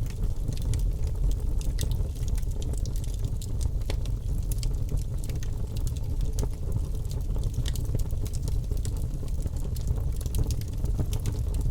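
Birch logs burning in a fireplace: a steady low rumble of flames with frequent small, sharp crackles and pops from the wood.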